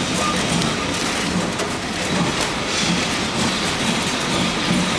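Vintage wooden Lisbon street tram running on its rails, heard from inside the car: a steady running noise of wheels and body, with faint repeated knocks.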